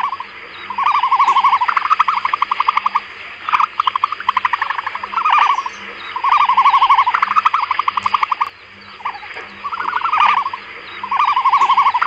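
An emu's pulsed calls: short trains of rapid pulses, each about a second long, repeated again and again with brief gaps.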